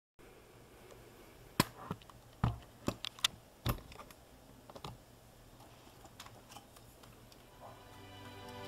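A handful of light, sharp clicks and taps, scattered over the first half. Background music fades in near the end.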